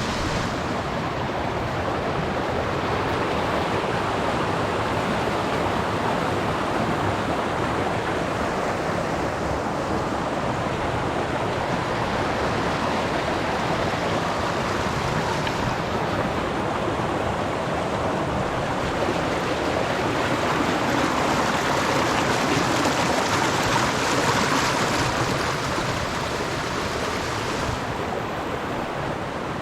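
Steady rushing of a creek's water, growing a little louder for a few seconds past the middle.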